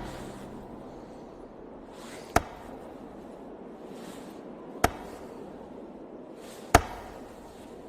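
Three single sharp knocks, about two seconds apart, the last one the loudest, over a steady low hiss: knocking from under a bed.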